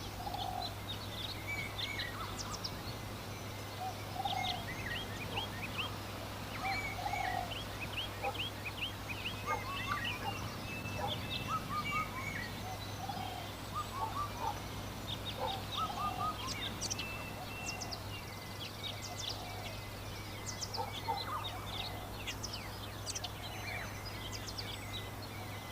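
Countryside birds chirping throughout in many short high notes, with a short lower call repeating every couple of seconds, over a steady low hum.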